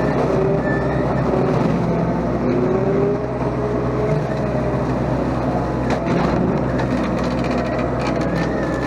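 Mini excavator engine running steadily under load, driving a home-built slasher attachment with a whine that wavers in pitch, and scattered sharp cracks, mostly in the second half, as the slasher cuts through brush.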